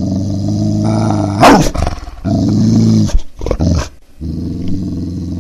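A leashed pit bull growling in long, steady low growls broken by short pauses, with a sudden louder bark about one and a half seconds in.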